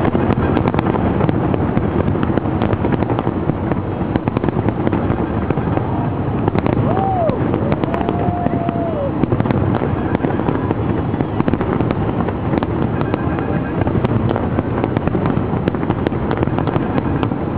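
Fireworks display: a continuous low rumble of bursts with many sharp crackling pops throughout. Two short whistling tones, rising then falling, come about seven seconds in.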